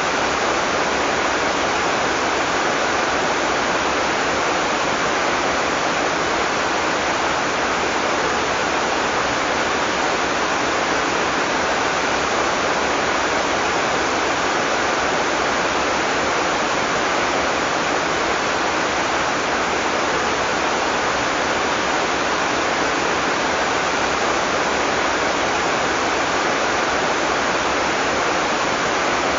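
Heavy rain falling steadily, an even dense hiss without thunder or distinct drops.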